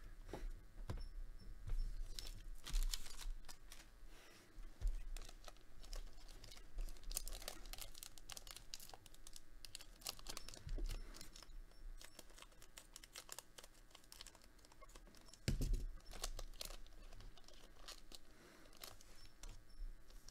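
Foil trading-card booster packs being torn open and crinkled, with cards being handled: irregular crackling and rustling. There is a dull thump about three-quarters of the way through.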